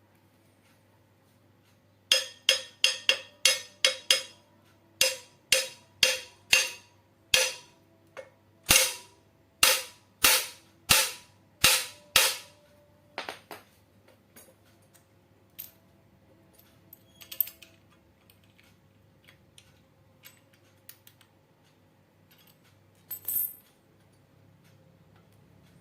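About twenty sharp metal strikes, first about three a second and then slower, each leaving a brief ringing tone, typical of hammering on a metal part. A few fainter knocks and a short scrape follow.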